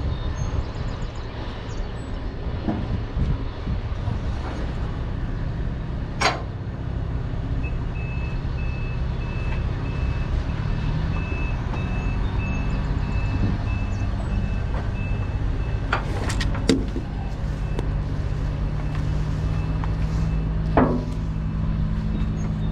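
Heavy truck's diesel engine running steadily with a low rumble. A rapid high-pitched beeping sounds for several seconds midway, and a few sharp knocks come about six seconds in, around sixteen seconds and near the end.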